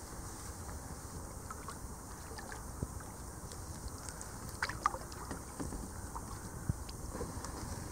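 Thin floating river ice crackling and ticking in scattered small clicks as the kayak drifts through it. A short cluster of sharper clicks comes about halfway through, over a low steady rush of wind and water.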